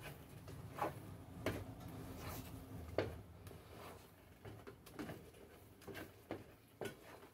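Wooden spoon stirring thick natilla in a non-stick pot: faint, irregular knocks and scrapes of the spoon against the pot.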